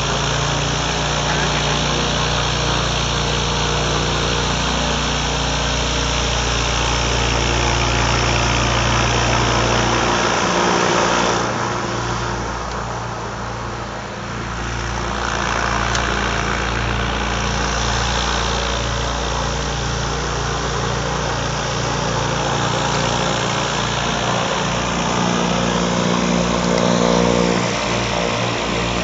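Diesel engine and pusher propeller of a homemade propeller-driven boat running steadily at speed. It dips a little about halfway through, then comes back with a pulsing throb near the end.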